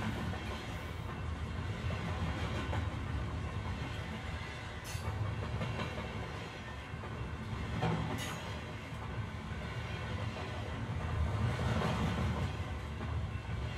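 Train rolling along the rails, a steady low rumble with two sharp clicks about five and eight seconds in.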